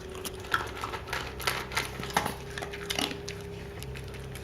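A Shiba Inu eating from a food bowl: irregular crunches and clicks against the bowl, a few a second, over a faint steady hum.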